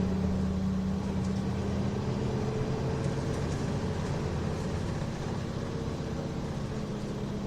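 Nissan Diesel Space Runner RM route bus's diesel engine running under way, heard from inside the passenger cabin as a steady drone with a held pitch, easing a little in loudness in the second half.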